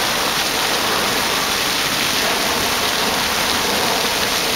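Water jets of a plaza fountain falling and splashing steadily into their pool, an even loud rush of water.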